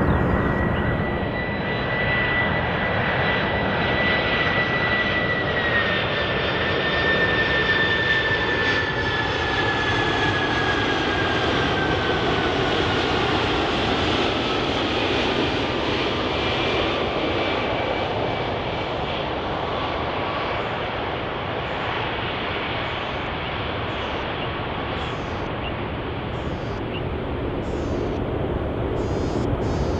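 Four-engined Boeing 747-400 jet on final approach: a steady jet-engine noise with a high whine that holds, then slowly falls in pitch as the aircraft passes.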